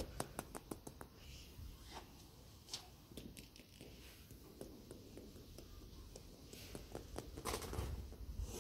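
Plastic toy animal figures being handled and set down on a surface. There is a quick run of light clicks and taps in the first second, then scattered single taps and soft handling noise.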